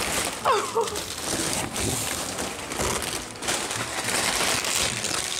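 Brown kraft packing paper crinkling and rustling as it is pulled away by hand, unwrapping a large cactus.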